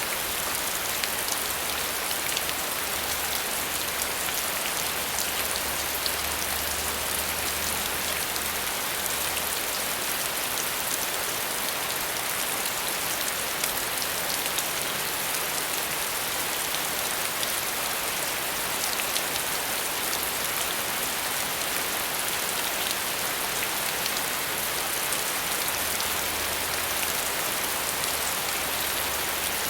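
Steady rain: an even hiss of rainfall with many separate drop ticks landing on a surface, its level unchanging throughout.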